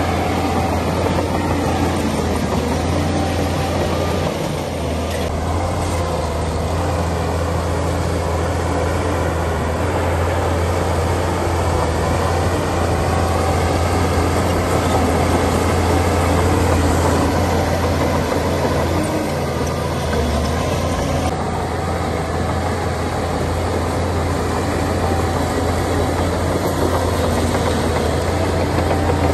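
Shantui crawler bulldozer's diesel engine running steadily under load as the machine pushes a blade full of dirt, with a deep, even drone.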